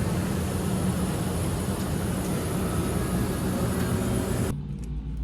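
Steady rushing vehicle noise with a low rumble; the rushing cuts off abruptly about four and a half seconds in, leaving a quieter low rumble.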